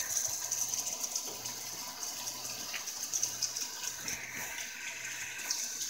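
Kitchen faucet running a steady thin stream of water into a stainless steel sink.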